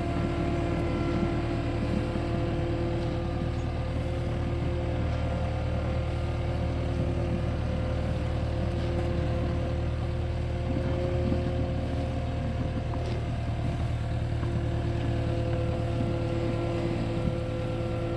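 Skid steer loader's engine running steadily: a low drone with a held whine above it that shifts slightly in pitch a few times as the machine works.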